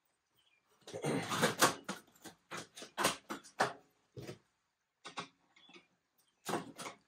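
Sheet-metal liner of a 1951 Vendo 39 Coke machine cabinet being pried and pulled loose with a hand tool. A second-long scraping rattle about a second in is followed by a run of short, sharp knocks and clanks.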